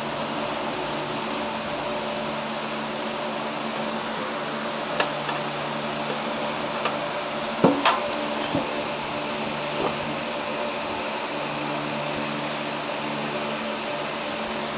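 Steady machine hum, of the kind a shop fan or air conditioner makes, with a handful of light clicks and knocks from parts and tools being handled. The loudest knocks come as a pair about eight seconds in.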